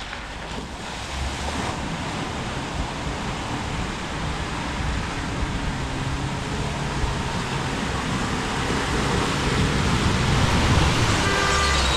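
Land Rover Freelander's engine labouring as it ploughs through deep muddy water, with splashing and churning tyres growing louder as it approaches. A car horn starts tooting near the end.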